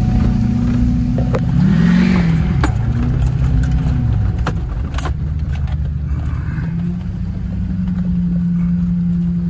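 Vehicle engine and road noise heard from inside the cabin while driving. The engine's low hum rises and falls in pitch about two seconds in, then runs steady, with scattered small clicks and rattles.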